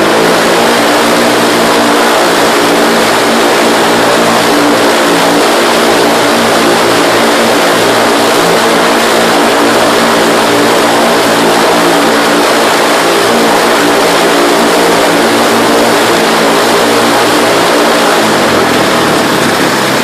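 MWfly aircraft engine running steadily on a test bench during its first run after assembly; near the end its speed drops and the pitch falls.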